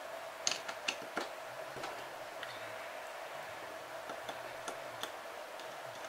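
Sharp metal clicks and ticks of a hand wrench working the cylinder-head fasteners of a Magnum XL91RFS four-stroke glow engine: a quick cluster in the first second, then scattered single ticks.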